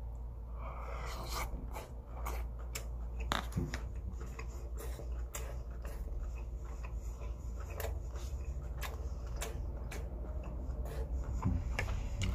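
Close-up eating sounds: a person chewing food, with irregular clicks and taps of wooden chopsticks and a plastic spoon against a plastic container, over a steady low hum.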